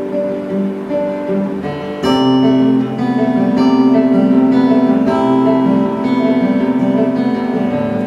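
Acoustic guitar strumming chords without singing, with a change of chord about two seconds in and again near the end.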